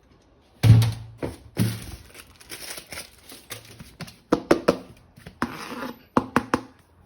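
Plastic parts and packaging being handled: crinkling and rustling, broken by irregular sharp clicks and knocks, the loudest about a second in and a quick cluster of clicks near the end.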